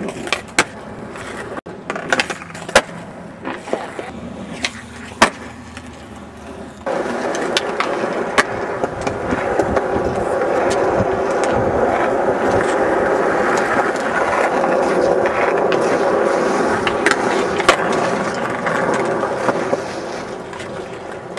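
Skateboard on concrete: sharp clacks of the board popping, striking and landing for the first several seconds. About seven seconds in, a loud, steady rolling rumble of the wheels on the concrete sets in, with occasional clacks on top, and it eases off near the end.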